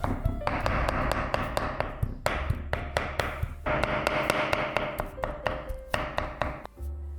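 A kitchen utensil tapping quickly, about three to four sharp taps a second, with stretches of hiss between them.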